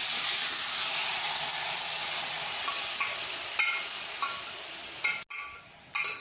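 Pressure-cooked beef and its juices tipped into a hot kadai of fried masala, sizzling hard at first and slowly dying down. A spoon scrapes and clinks against the aluminium pressure cooker a few times as it is emptied.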